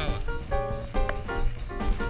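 Instrumental background music with sustained melodic notes over a low beat.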